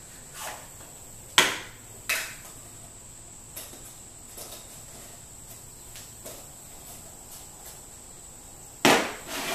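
Small objects handled and set down on a tabletop: a few sharp knocks, the loudest about a second and a half in and two more near the end, with light clicks between, over a steady high-pitched whine.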